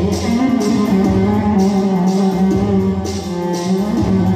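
Instrumental break of Arabic swehli party music played live on a Korg arranger keyboard through PA speakers: a sustained, bending plucked-string-like melody over a steady programmed drum beat, without singing.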